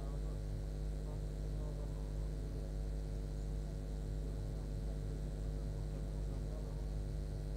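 A steady low hum that never changes, with faint crowd chatter over it.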